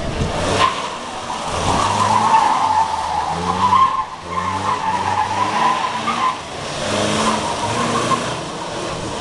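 Lancia Flavia Coupé 1.8 fuel-injected flat-four engine revving hard, its pitch climbing and dropping between gear changes, while the tyres squeal as the car slides round the cones. The squeal is long and wavering, from about a second in until past six seconds, then returns briefly near the end.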